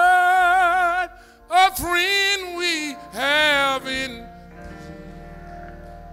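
A man sings three loud, long held phrases with a wavering vibrato into a microphone, in gospel style. From about four and a half seconds in, a keyboard holds a quiet sustained chord.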